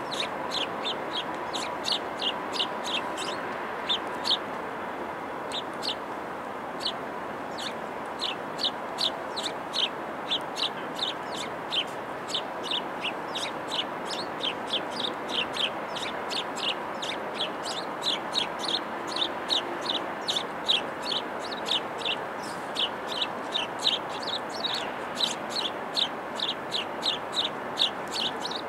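A small bird chirping over and over, short high chirps several a second in long runs with brief pauses, over a steady background hum.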